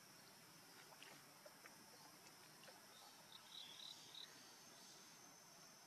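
Faint insects droning steadily in a high register, with a short burst of high chirps about three and a half seconds in and a few soft ticks.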